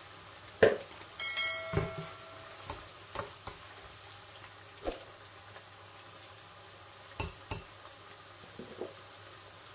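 Metal slotted skimmer knocking and clinking against an enamelled steel pan, about a dozen separate sharp taps as fried potato chips are scooped out of the oil. A brief ringing tone sounds about a second in.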